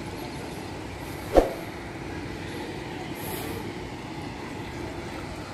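Steady outdoor noise, a low rumble with hiss, broken by one sharp knock about a second and a half in.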